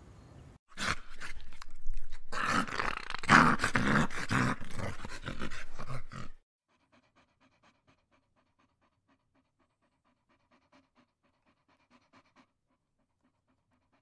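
A dog panting hard in rapid breathy strokes for about six seconds, then cutting off suddenly, leaving only a very faint repeated rhythm.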